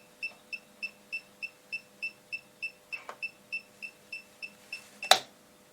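Rapid electronic beeping, short high-pitched beeps about three a second, which stops near the end; the owner guesses it is a warning for being at over 1,000 volts. A faint click comes about three seconds in and a sharp click near the end.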